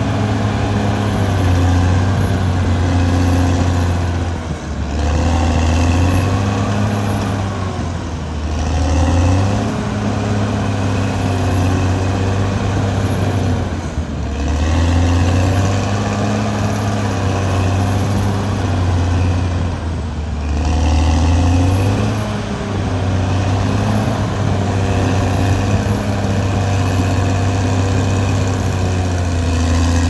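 Diesel engine of a Caterpillar D6R XL crawler bulldozer running loud and steady, its pitch dipping and recovering every few seconds as the load changes.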